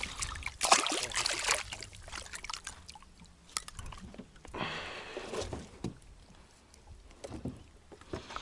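Handling noises in a small fishing boat: a cluster of knocks and clatter in the first two seconds, a short splash about five seconds in, and scattered light knocks after, with water sloshing against the hull.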